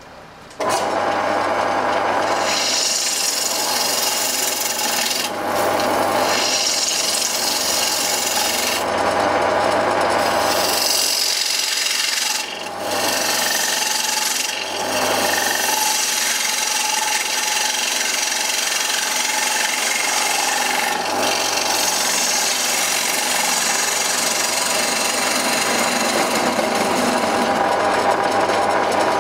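Wood lathe turning a wooden disc while the tip of a bowl gouge cuts across its face: a steady scraping, shearing cut over the low hum of the running lathe. It starts about half a second in and breaks off briefly three times.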